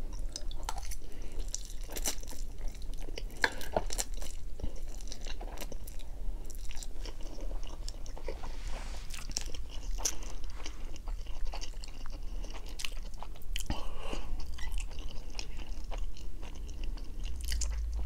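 Close-miked chewing of a mouthful of Samyang Carbo spicy instant noodles, with many wet mouth clicks and smacks and an occasional crunch.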